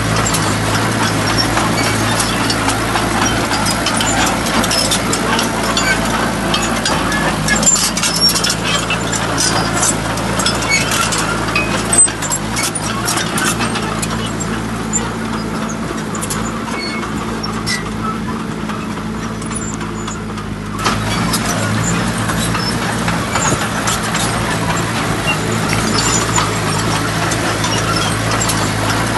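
Truck engine running steadily, with scattered clicks and knocks and one sharp knock about twelve seconds in.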